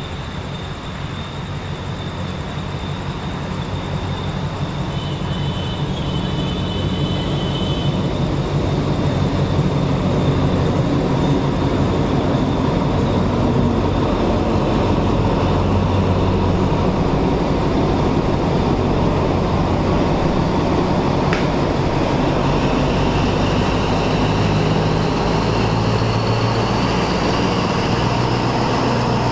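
Alsthom diesel-electric locomotive No. 4419 and its passenger train running past, the engine's low drone and wheel noise growing louder over the first ten seconds and then holding steady. A single sharp click sounds about 21 seconds in.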